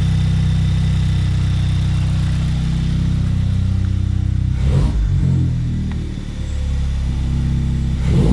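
Turbocharged VW Golf engine running at a steady, raised idle, with a brief surge in engine sound about five seconds in and again near the end. The high idle comes after the vacuum hose was cut, teed and capped for the blow-off valve, which they suspect is the cause.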